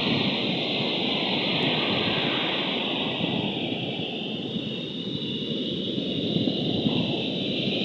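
Wind buffeting the microphone: a steady rushing noise that eases slightly around the middle and then picks up again.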